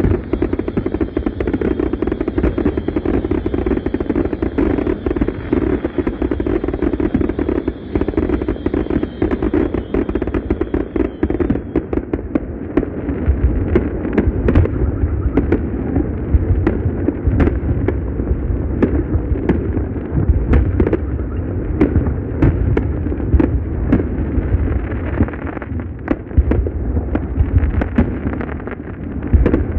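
Aerial firework shells bursting in rapid succession: a continuous barrage of bangs and crackling. The bangs get heavier and deeper from about twelve seconds in.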